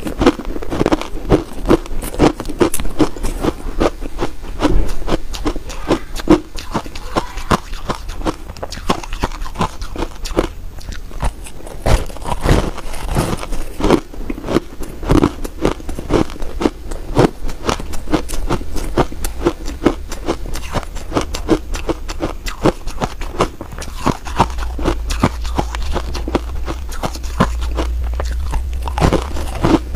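A person biting and chewing ice chunks coated in frozen matcha powder: a continuous run of sharp, crackly crunches, several a second.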